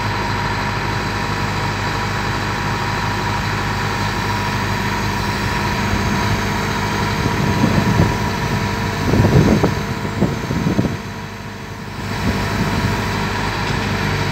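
Kobelco SK220XD LC crawler excavator's diesel engine running steadily as the machine tracks down off a truck's trailer, with a few heavy low thuds and rumbles about two-thirds through and a brief drop in engine level shortly after.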